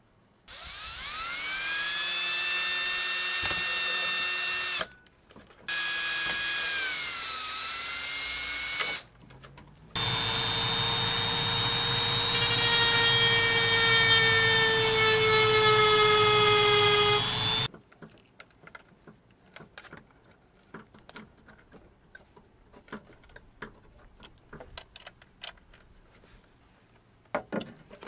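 Small cordless power driver running in three bursts of a few seconds each, driving screws through plastic dash trim into a switch-panel bracket. Its whine sags in pitch under load. Light clicks of parts being handled follow.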